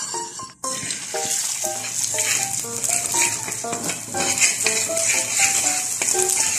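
Beaten egg sizzling in a hot pan as it is stirred and broken up with a spatula, over background music of short, light melody notes. The sizzle starts abruptly about half a second in, after a brief drop in sound.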